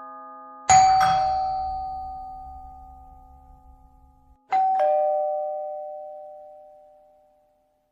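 Two-note ding-dong chime in the style of a doorbell, sounding twice about four seconds apart: a higher note followed at once by a lower one, each ringing on and fading away.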